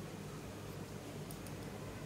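A few faint clicks from a small glitter jar being shaken and tapped over a tray of clear slime, over a steady low background hum.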